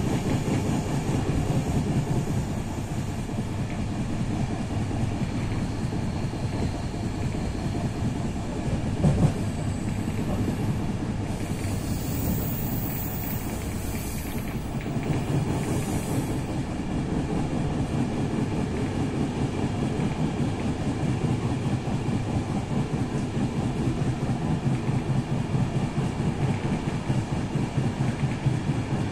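Passenger train running through a station yard, heard inside the carriage: wheels clattering fast over rail joints and points over a steady rumble. There is a sharp clunk about nine seconds in, and a high hiss a few seconds later.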